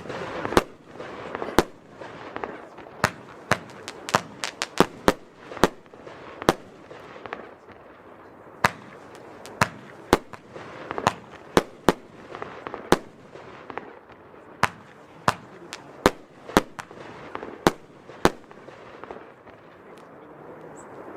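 Panda Monster Ride F2 firework battery firing: a rapid, irregular series of sharp bangs from its shots and bursts over a continuous hiss. The bangs thin out and fade near the end.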